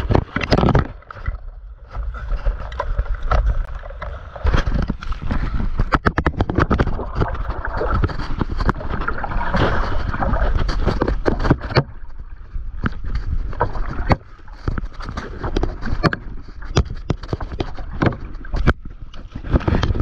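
Sea water splashing and gurgling against a stand-up paddleboard right at the microphone, with many sharp irregular knocks and a low rumble from water and wind buffeting the mic.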